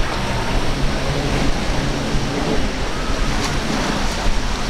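Surf and wind rushing steadily, over the low drone of a Freeman center-console's quad Mercury Racing 450 hp outboard engines running at speed.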